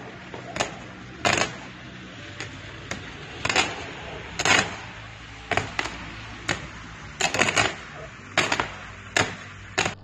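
A steady hiss broken by about a dozen sharp, irregular cracks and clicks, some in quick pairs and a cluster near the three-quarter mark.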